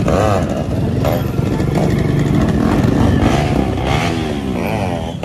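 Vehicle engine revving repeatedly, its pitch rising and falling several times over a continuous low rumble.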